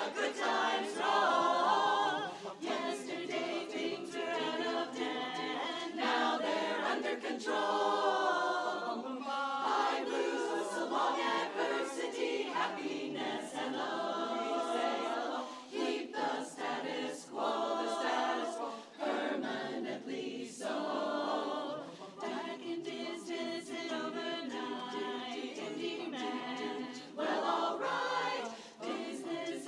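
Women's barbershop chorus singing a cappella in close four-part harmony.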